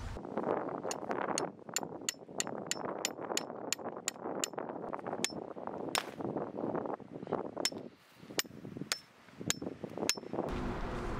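Metal camping hammer striking a tent peg to drive it into the ground: a quick run of sharp, ringing metallic strikes, about three a second, then slower, spaced strikes near the end.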